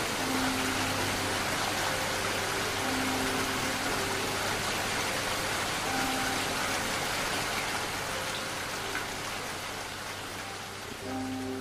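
Steady, even hiss of heavy rain, with a few soft, slow held music notes beneath it.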